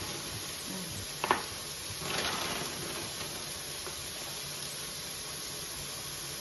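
Steady sizzling of steaks frying in a pan, with one sharp knock of a kitchen knife on a wooden cutting board about a second in.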